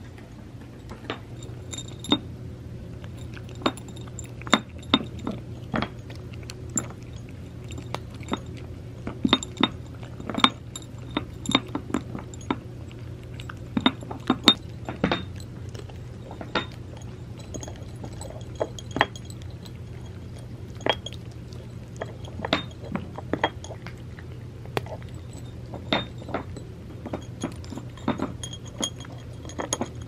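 Cats crunching dry cat treats, with irregular sharp crunches and clinks as treats and teeth knock against ceramic saucers. Some clinks ring briefly.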